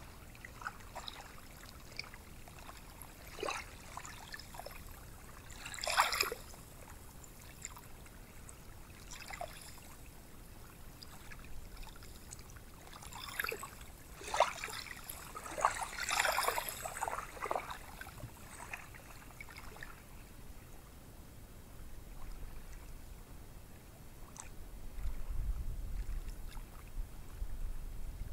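Gentle ocean surf on a sandy beach: a soft wash of small waves with scattered short fizzing, hissing bursts, busiest about a third and a half of the way in. A low rumble rises near the end.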